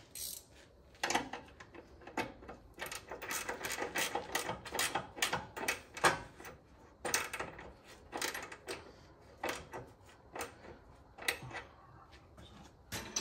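Hand ratchet wrench clicking in short runs of strokes, with small metal clinks, as lock nuts are run onto the transmission crossmember bolts.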